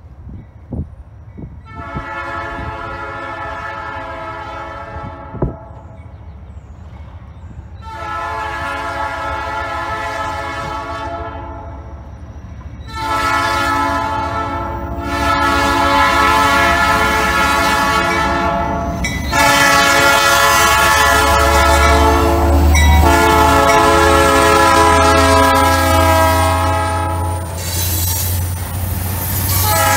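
Diesel freight locomotive's horn sounding the grade-crossing signal: two long blasts, a short one, then a final long blast held for several seconds as the locomotive reaches the crossing. A low engine rumble builds underneath in the second half, and the wheels clatter over the rails near the end.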